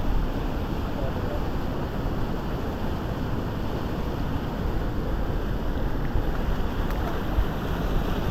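Steady rushing of fast-flowing floodwater over a weir and rapids, with a low rumble of wind on the microphone.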